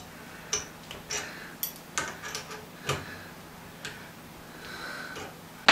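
Irregular light metallic clicks and taps, about ten in all, from the steel parts of an airgun spring compressor and air rifle action being handled and fitted by hand.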